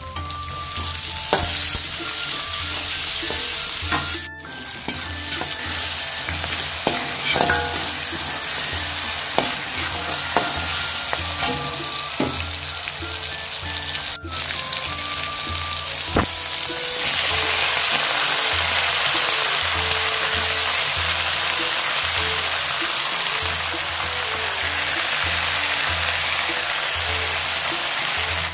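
Oil sizzling in a wok as sliced shallots, garlic and chillies stir-fry, with a spatula clicking and scraping against the pan. The sizzle turns louder and more even about seventeen seconds in.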